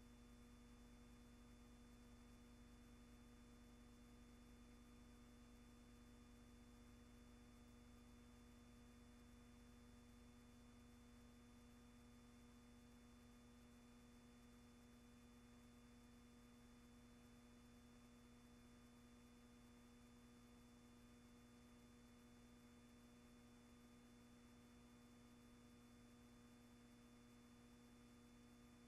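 Near silence: a faint, steady hum with a low hiss, unchanging throughout.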